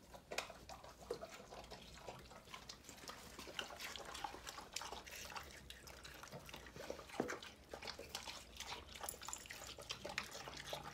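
Two dogs, an Akita and a small dog, eating juicy yellow watermelon from steel bowls: wet chewing and slurping with irregular smacks and clicks.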